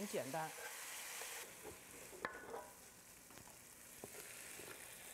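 Shredded potato strips sizzling faintly in an oiled wok while being stirred with chopsticks and a wooden spatula. The sizzle drops away after about a second and a half, and there is one sharp knock a little past two seconds.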